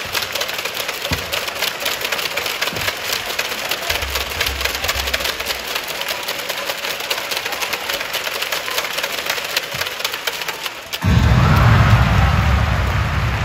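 Arena crowd making a dense, crackling patter of clapping during a basketball free throw. About eleven seconds in, it suddenly swells into a louder burst of crowd applause and noise.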